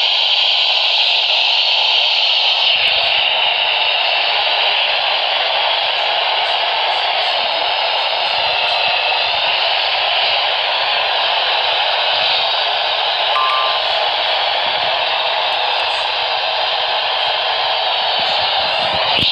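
Steady radio static: an even hiss from a radio receiver, with no voice and no alert tones.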